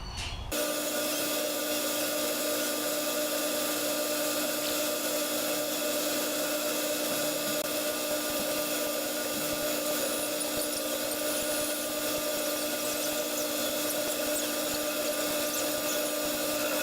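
Clausing metal lathe running steadily with a constant whine while a boring bar takes a pass through the bore of a steel part. The sound starts abruptly about half a second in.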